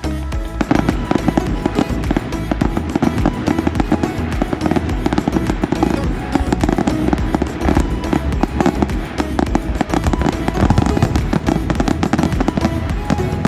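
A fireworks display crackling and popping in a dense, rapid volley that starts about half a second in, over background music.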